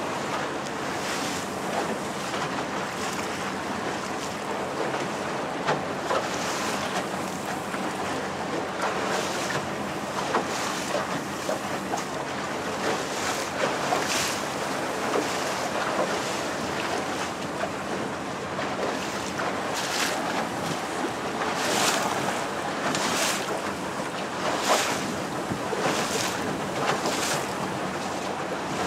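Small motor boat running slowly offshore: a low steady engine hum under wind noise on the microphone and the wash of sea water. Several short rushes of noise come in the second half.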